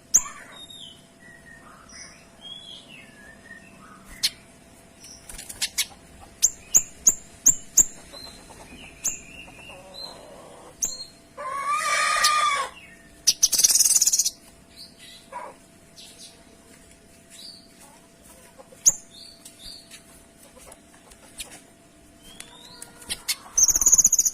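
Kinoy songbird singing in scattered bursts of sharp, high chirping notes, including a quick run of about five clipped notes. A louder, harsher and lower call comes about halfway through.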